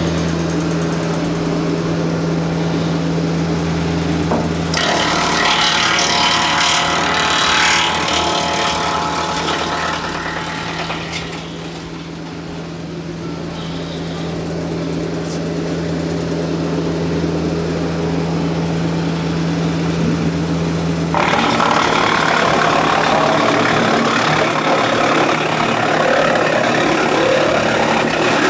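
Compact diesel tractor running a 4-inch PTO-driven wood chipper at a steady speed. Brush is fed in and chipped twice: first for several seconds starting about five seconds in, then again from about two-thirds of the way through.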